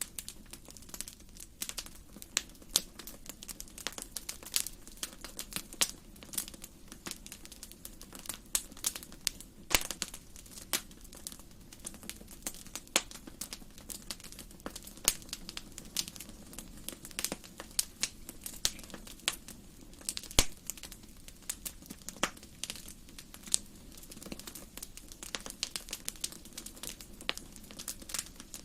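Wood fire crackling and popping in a fireplace: irregular sharp snaps, several a second, over a soft steady rush of burning.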